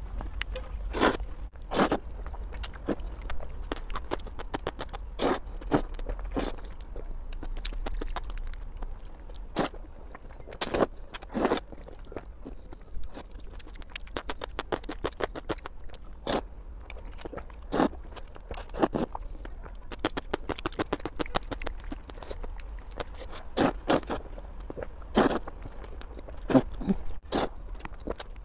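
Close-up eating sounds of noodles: chewing and slurping, with chopsticks scraping the bowl. It comes as an irregular string of short, wet smacks and clicks.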